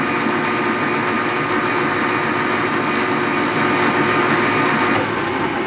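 Grizzly G0824 gear-head metal lathe running with its spindle at 460 RPM: a steady hum from the headstock gearing and motor.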